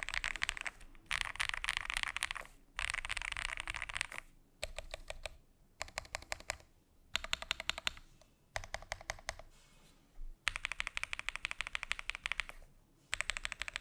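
Typing on an Itou65 mechanical keyboard (CNC aluminium case, FR4 plate) fitted without PE foam: fast runs of keystrokes lasting a second or two, broken by short pauses, with a stretch of slower, separate key presses about midway.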